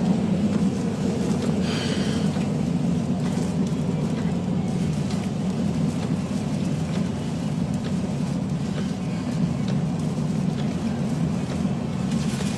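Tornado wind roaring steadily around a pickup truck, heard from inside the cab, with faint scattered ticks.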